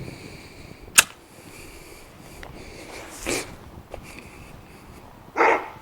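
Handling noises: a sharp click about a second in, then two short rustling swishes, the second louder.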